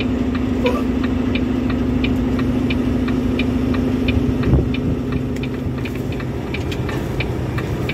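Semi truck's diesel engine running at low speed, heard from inside the cab, its steady note dropping lower about halfway through. A regular ticking, about three a second, runs over it.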